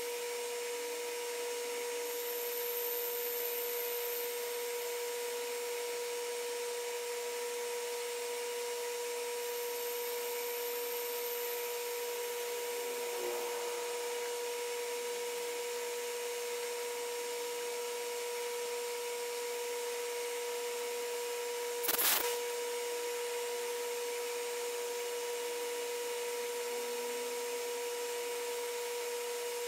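Metal lathe running with a steady mid-pitched hum while a boring bar cuts inside a spinning brass part. One sharp click about 22 seconds in.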